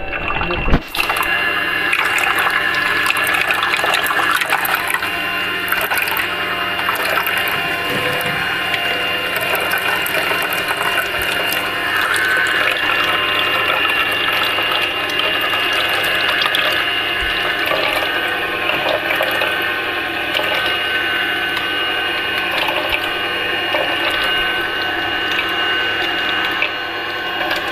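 Vertical slow juicer running: a steady motor hum and whine, with the auger crackling and crunching as it presses fruit and carrot.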